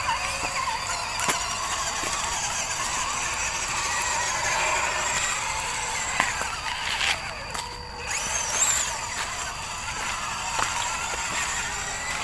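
Small electric motor and gearbox of an MN128 RC off-road car whining, the pitch rising and falling with the throttle, with a few sharp clicks and knocks as it crawls over the trail.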